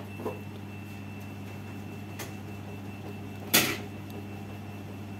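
A sharp click about three and a half seconds in as a DC adapter's barrel plug is pushed into the power jack of a network booster's circuit board, with a fainter tick a little before, over a steady low hum.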